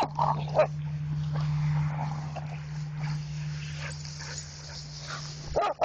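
Dogs playing, giving short yips and whines: a couple about half a second in and a louder one near the end, over a steady low hum.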